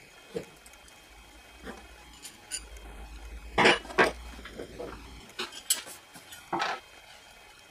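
Metal wrenches and steel rods being set down and handled on a wooden board: a string of clinks and knocks, the two loudest close together about three and a half and four seconds in, and another about six and a half seconds in.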